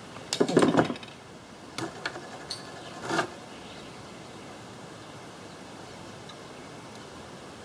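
Hands working a piece of vinyl tubing onto a small fuel fitting: a quick flurry of clicks and rustles, then a few more light taps over the next couple of seconds, before only a steady faint background hiss remains.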